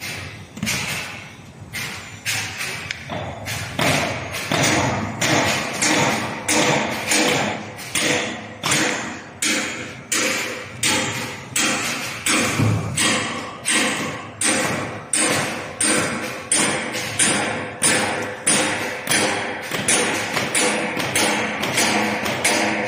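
Flexo printing and rotary die-cutting machine running, with a steady hum and an even thump about every 0.8 s as each PP hollow sheet is fed through and die-cut.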